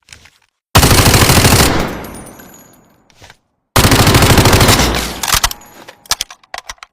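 Uzi submachine gun firing two full-auto bursts of about a second each, rapid shots, one starting near the first second and the other near the fourth, each trailing off in echo. A few scattered sharp clicks and cracks follow near the end.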